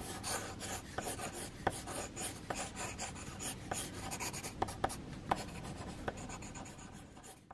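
Pencil sketching on paper: quick, irregular scratchy strokes with light taps of the lead, which cut off suddenly at the end.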